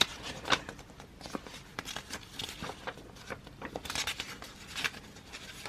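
Pages of a paper lyrics booklet being flipped and handled: a scattered series of soft rustles and light clicks.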